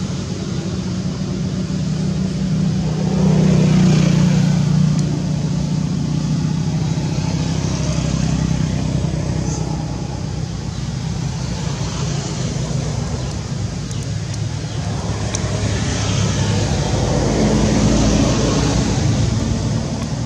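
Road traffic: a steady engine hum from motor vehicles, swelling louder as vehicles pass about three seconds in and again near the end.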